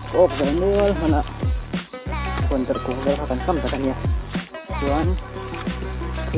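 A steady, high-pitched drone of insects, with music and singing underneath that has a regular beat of falling-pitch low thumps.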